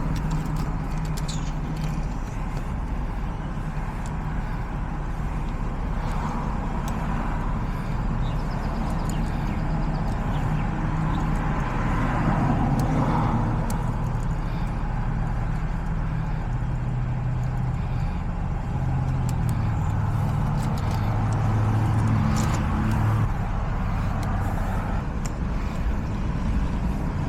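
A steady low mechanical drone, like an engine running, with faint clicks now and then.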